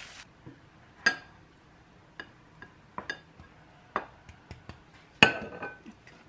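Wooden spatula clinking against a ceramic bowl as fried rice is scooped and packed into it: a string of sharp, separate clinks. About five seconds in comes the loudest clink, with a short ring, as the ceramic bowl is set upside down on a ceramic plate.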